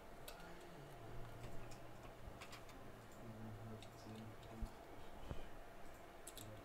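Faint, scattered clicks and taps, a few seconds apart, from an iPhone logic board being seated in a plastic-and-metal test socket fixture and its clamp being handled.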